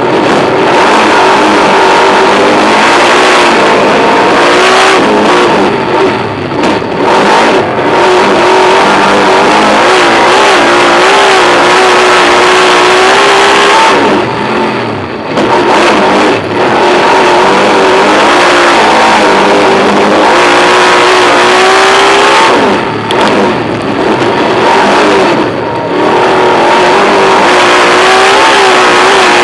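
Superstock speedway car's V8 engine heard from inside the cockpit at racing speed, running loud on the throttle with a wavering pitch. It dips briefly three times, a few seconds in, around the middle and near the end, as the throttle eases.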